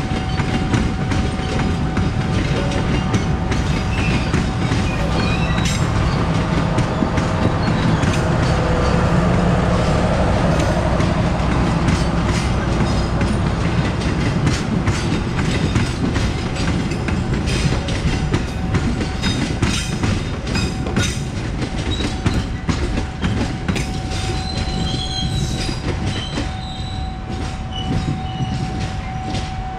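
Train passing close by with a steady clickety-clack of wheels over the rail joints, swelling about ten seconds in. A steady high tone sounds over it, dropping away in the middle and returning near the end.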